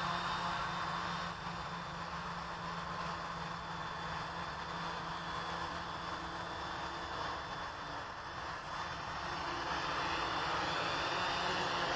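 Quadcopter's electric motors and propellers humming steadily as it descends to land, with a low hum and a faint high whine.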